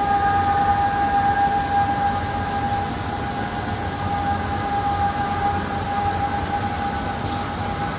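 A steady, siren-like hum held at one unchanging pitch, with fainter higher tones above it, over a low rumble: one of the reported 'strange sounds in the sky'.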